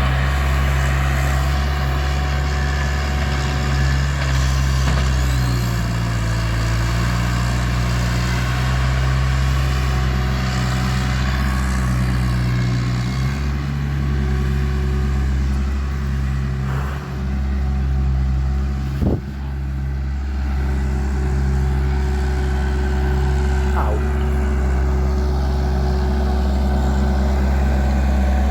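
Bobcat loader's engine running steadily under work, its pitch shifting a few times as the machine changes load. A brief sharp sound cuts through about two-thirds of the way in.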